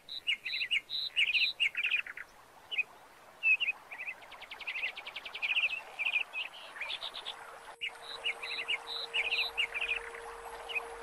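Several birds singing: repeated short high chirps and quick trills, one after another, with a faint steady hum joining about seven seconds in.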